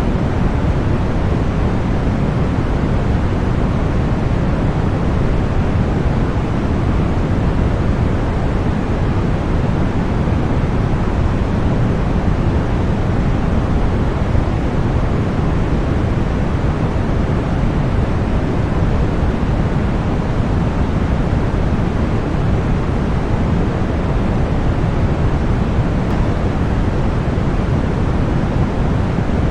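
Continuous deep white noise of the kind used for sleep and tinnitus masking, perfectly steady and even, heaviest in the low end and dull rather than hissy at the top.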